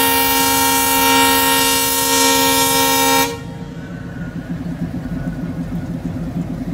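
Train air horn sounding a long, steady multi-note chord that cuts off suddenly about three seconds in. A quieter, quickly pulsing low rumble follows.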